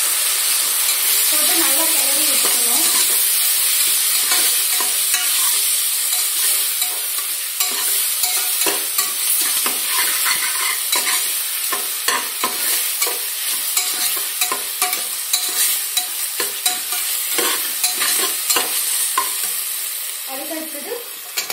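Mint and coriander leaves sizzling in hot oil and ghee in a steel pressure cooker. They are stirred with a metal spatula, whose scrapes and clicks against the pot come thick and fast from about seven seconds in.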